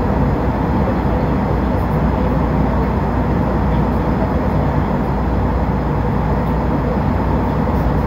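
Airliner cabin noise in cruise flight: a steady low rush of engines and airflow with a faint even hum over it, unchanging in level.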